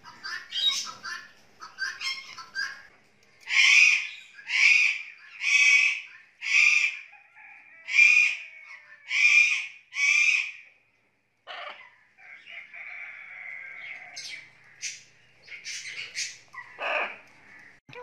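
Parrot calls: a run of short chirps, then seven loud calls repeated evenly about once a second. After them comes a quieter held note, and a few more calls near the end.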